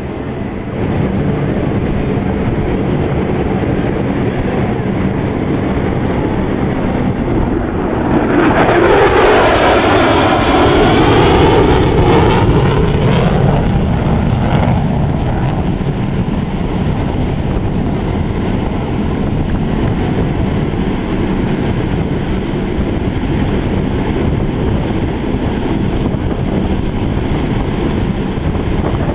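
Military jet engine noise from a low pass, a steady roar that swells to its loudest about eight seconds in, with a sweeping rush as the jet goes by. It then settles back to a steady distant roar.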